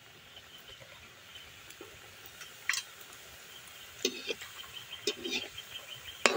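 Gulab jamun dough balls frying in hot oil in a metal wok, a faint steady sizzle. In the second half a perforated slotted spoon knocks and scrapes against the wok a few times as the balls are turned.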